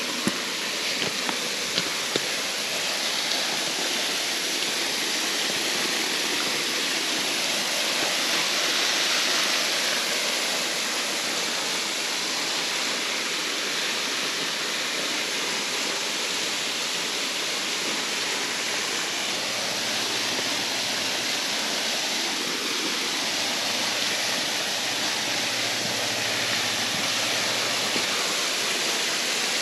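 Waterfall running full after recent rains: a steady rush of falling water.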